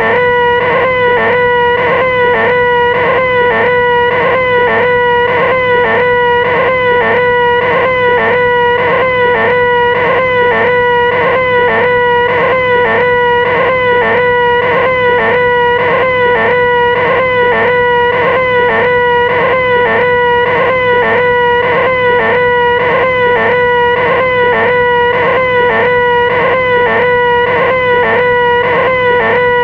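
A loud, sustained vocal 'ahhh' held on one steady, fairly high pitch, wobbling in a regular repeating pattern without a break: the 'most annoying sound in the world' wail. A steady low hum runs underneath.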